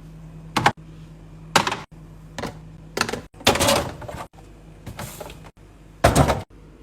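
Groceries being set into a fridge: a run of short knocks and clacks, about seven in all, with a longer scraping clatter about three and a half seconds in and the loudest clack near the end.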